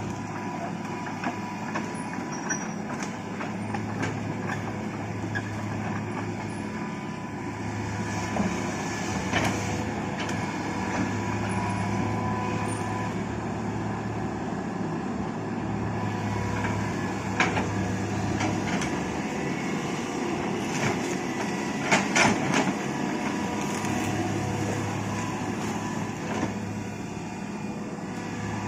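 Hitachi hydraulic excavator's diesel engine running steadily under work, with a few sharp knocks, the loudest about two-thirds of the way in.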